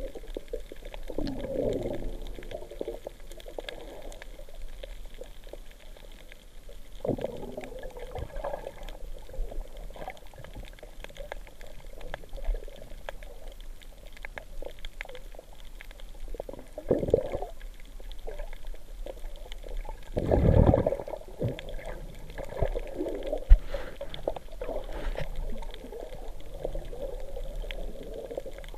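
Muffled underwater water noise heard through an underwater camera, with irregular gurgling swells, the loudest about twenty seconds in, and one sharp tap a few seconds later.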